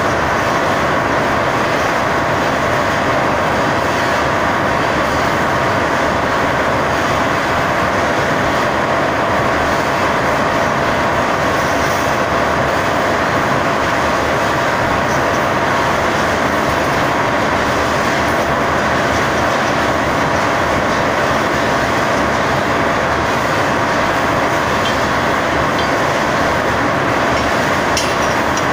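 Wire-drawing line machinery running continuously: a loud, even mechanical noise with a faint steady hum tone through it, as the wire runs off the coil.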